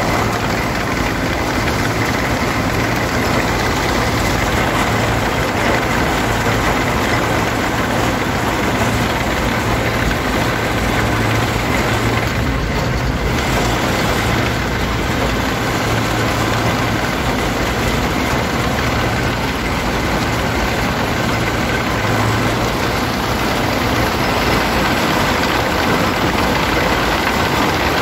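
DT-75 crawler tractor on the move, its turbocharged diesel engine running steadily, heard from the cab together with the clatter of its steel tracks.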